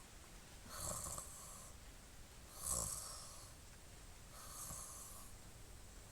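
A man snoring in his sleep: three snores about two seconds apart, the second the loudest.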